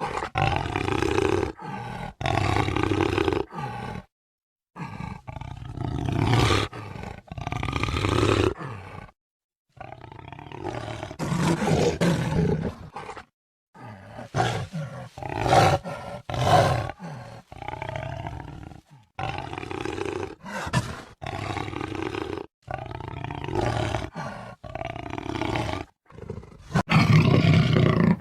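Jaguar roaring and growling in a string of separate calls, each a second or two long. Several abrupt breaks to silence fall between edited clips.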